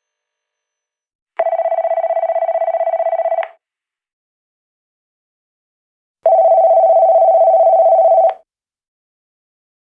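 Phone ringtone in the classic telephone ring pattern: two rings of about two seconds each with a fast warbling trill, separated by a few seconds of silence.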